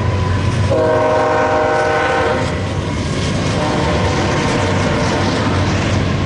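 Freight train horn sounding one long blast from about a second in until about two and a half seconds in, over the rumble of passing BNSF diesel locomotives. After the horn stops, the wheels clatter as double-stack container cars roll past.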